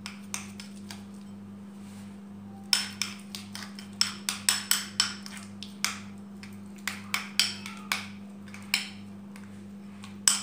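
Metal spoon clinking and scraping against a small ceramic bowl in quick, irregular strokes as soft cheeses are mashed together; the clinking starts about two and a half seconds in.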